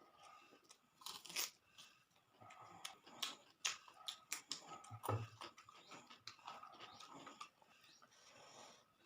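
A person chewing and biting crunchy food close to the microphone, with irregular crisp crunches.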